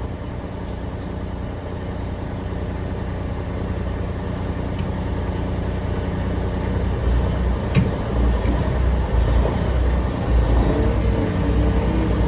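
A motor vehicle engine running steadily, its low rumble growing louder and more uneven in the second half, with two sharp clicks.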